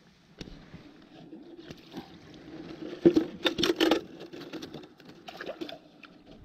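A caught fish is handled in a cloth and put into a collapsible wire keepnet basket: soft rustling, then a burst of quick metallic rattles and clicks from the wire basket about three seconds in, with a few lighter clicks after.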